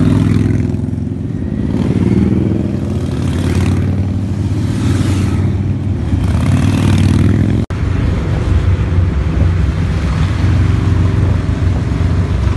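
Harley-Davidson cruiser motorcycles riding past one after another, their V-twin engines rumbling, each pass swelling and fading. A little past the middle the sound breaks off for an instant, then a pack of the bikes rumbles on steadily.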